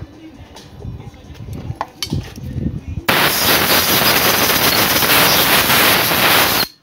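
Pneumatic tool on a compressed-air hose running at a camshaft-cap bolt hole being re-tapped in an aluminium cylinder head: a loud, steady rush of air starts about three seconds in and cuts off sharply after about three and a half seconds. Before it there are a few light metal clicks of handling.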